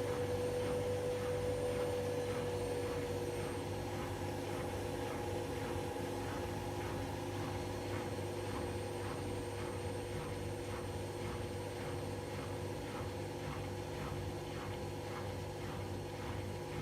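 Beko washing machine running: a steady motor whine that rises in pitch right at the start and then holds, with a swish repeating about one and a half times a second as the drum turns.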